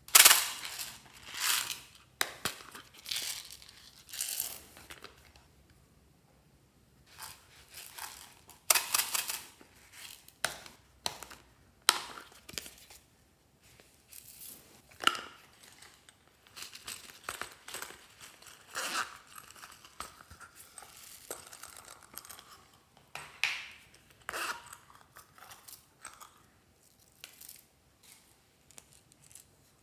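Hands handling a plastic compact case and emptying its small plastic decorations into a glass dish: a series of sharp crackling, rustling bursts and clicks, the loudest right at the start.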